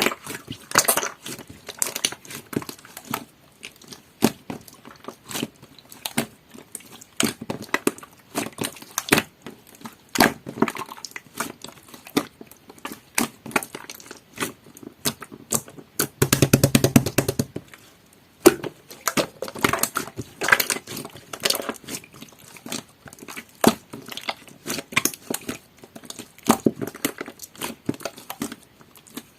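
Jelly-textured custard pudding slime being squished and pressed by hand: irregular sticky clicks and small crackling pops, with a denser, louder squelching stretch about sixteen seconds in.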